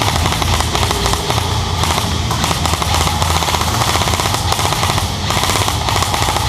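Airsoft guns firing on full auto: long strings of rapid mechanical clicks, pausing briefly a few times.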